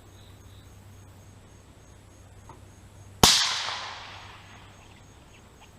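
A single AR-15 rifle shot about three seconds in: one sharp crack followed by a tail that dies away over about a second and a half.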